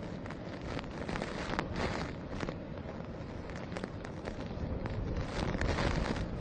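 Cyclone wind and heavy rain, wind buffeting the microphone with a steady low rumble and crackling gusts.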